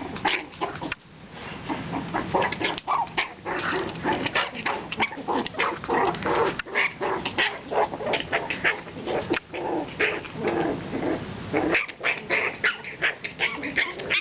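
A litter of puppies, four to six weeks old, yipping and barking in play, many short high calls in quick succession.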